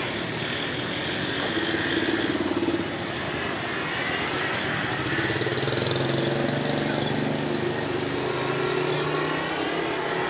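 Motorcycles riding past on the street one after another, their small engines growing louder and then fading away.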